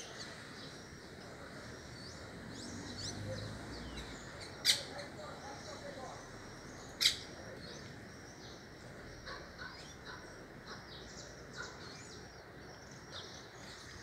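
Many small birds chirping and twittering throughout, with two loud, very short bird calls about five and seven seconds in.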